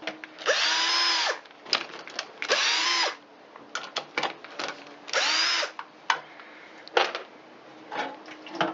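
Power drill-driver spinning up and down in three short runs, removing fasteners to dismantle the generator. Small clicks and clatter of screws and parts come between the runs.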